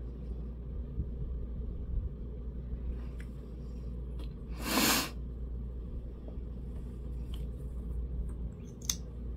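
A single short, sharp burst of breath noise from a person, like a sneeze, about halfway through, over a steady low hum. A few faint clicks come before and after it.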